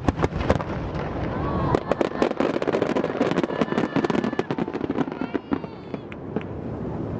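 Fireworks display: a rapid string of bangs and crackles from bursting aerial shells.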